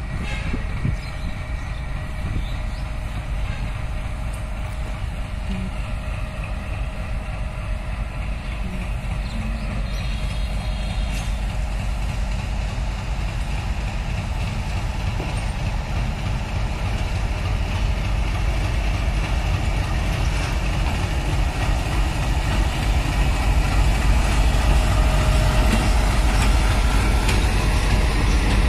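Diesel locomotive hauling a passenger train out of the station, its engine running in a steady low rumble as it draws near. Then the coaches roll past on the rails, and the rumble grows louder toward the end.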